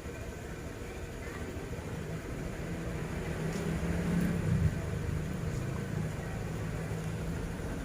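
A motor vehicle engine running with a steady low hum that grows louder toward the middle and then eases slightly, as if it passes close or is revved.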